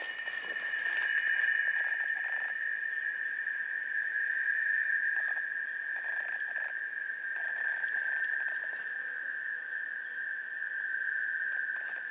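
Forest night ambience: a steady, high-pitched insect drone that sinks slightly in pitch, with faint repeated chirps above it and a few soft rustles.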